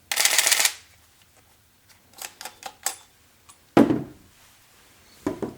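Canon EOS-3 film camera with the PB-E2 Power Drive Booster firing a rapid half-second burst of frames, its shutter and motor drive a little loud. A few light separate clicks follow, then two duller knocks.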